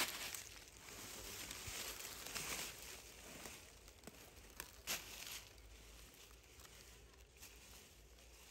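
Faint rustling and crackling of dry fallen leaves over the first few seconds, with a sharp click about five seconds in, then quieter rustling.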